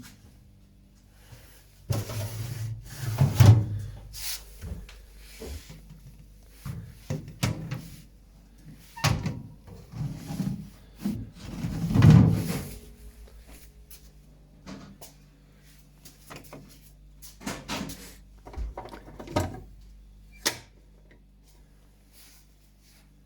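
Refrigerator doors and plastic drawers being opened, slid and closed: a string of knocks, clicks and rattles, loudest about three seconds in and again about twelve seconds in, over a low steady hum.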